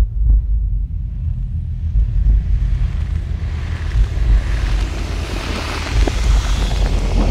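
Sound-design effect for an animated logo reveal: a deep, continuous rumble that starts suddenly, with a rushing hiss that swells through the second half.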